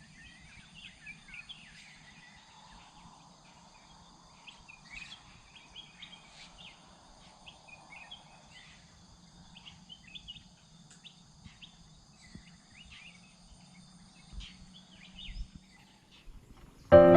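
Outdoor nature ambience: many short bird calls and chirps over a steady, high-pitched insect drone. Piano music comes in suddenly at the very end.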